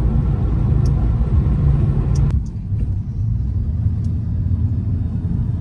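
Road noise inside a moving car: a steady low rumble. About two seconds in, the lighter hiss above it drops away suddenly and the rumble goes on.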